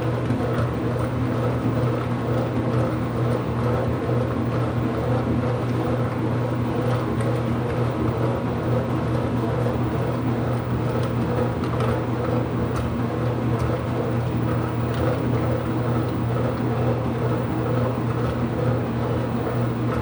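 Ipso washing machine running mid-cycle: a steady mechanical hum with a low drone and a few steady higher tones, unchanging throughout.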